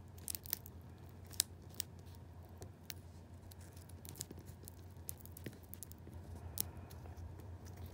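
A dry, ripe Tecoma stans (yellow bells) seed pod being split open by hand along its seam: faint, scattered small crackles and snaps of the papery pod wall, a few sharper ones in the first two seconds and one more near the end.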